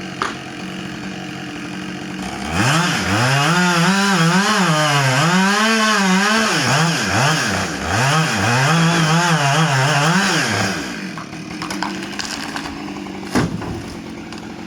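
Husqvarna two-stroke chainsaw idling, then run at high revs for about eight seconds, its engine speed rising and falling as the chain bogs in the wood, easing off briefly midway, then dropping back to idle. A sharp knock near the end.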